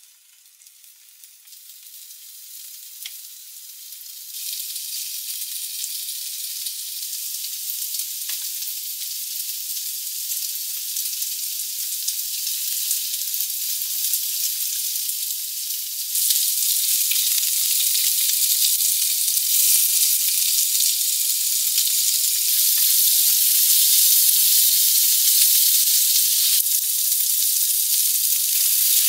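Cubes of pork loin sizzling as they sear in a hot frying pan, the sizzle growing louder in steps as more pieces are laid in.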